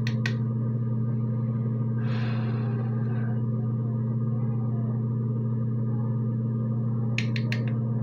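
Steady low hum throughout. Over it, a quick run of sharp clicks from a small clear plastic makeup case being handled at the very start and again near the end, and a brief soft brushing sound of a makeup brush on the cheek about two seconds in.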